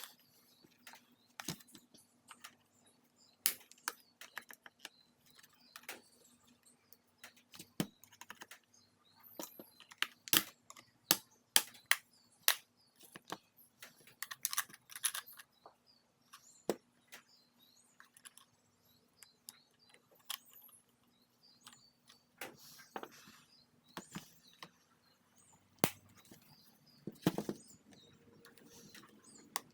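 Irregular clicks and taps of the hard plastic housing and a tool being handled while a Shark vacuum power nozzle is taken apart. A faint steady hum runs underneath.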